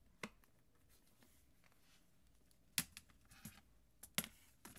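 Handling noise from an iPad in a plastic folio case and a wireless keyboard being picked up: a few sharp hard-plastic clicks and taps, the loudest about three seconds in and again just after four seconds.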